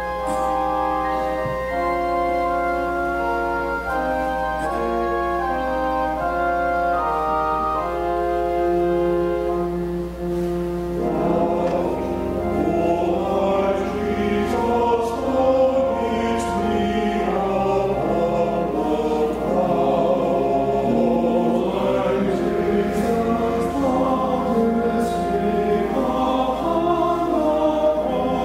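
Church choir singing an anthem with organ accompaniment. The opening several seconds are held, steady chords over a sustained low bass; about eleven seconds in the sound thickens into full choral singing.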